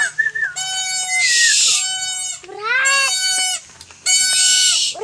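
Three long animal cries, each about a second, at a level pitch with a bend at the end; a harsh hiss rides over the first and the last.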